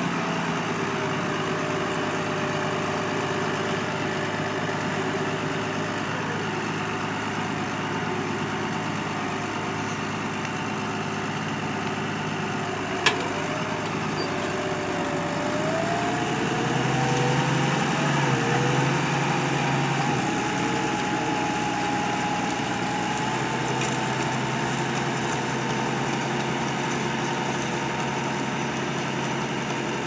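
New Holland T6.180 tractor engine running steadily while pulling a mounted reversible plough, its revs climbing for a few seconds just past halfway. A single sharp click sounds a little before the midpoint.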